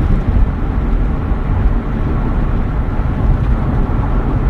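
A loud, steady, low rumbling noise with no clear tone.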